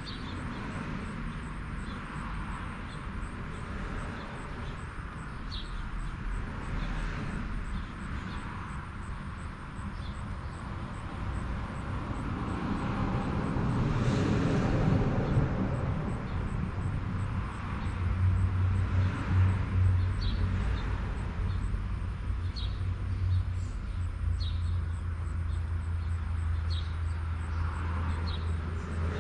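Outdoor background with scattered bird chirps; a vehicle passes, swelling and fading near the middle. A low steady hum starts soon after and continues to the end.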